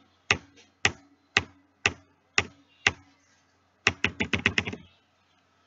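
Keyboard typing sound effect: single keystrokes about two a second, then a quick run of about eight keystrokes before it stops.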